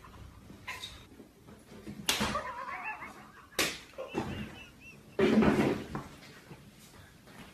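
A few sharp hand slaps and thuds in a small room, the loudest about five seconds in.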